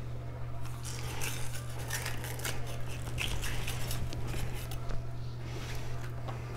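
Rowland Cutlery 240 mm kiritsuke gyuto slicing through food on a cutting board: a run of quick, irregular slicing strokes and light knocks. A steady low hum sits underneath.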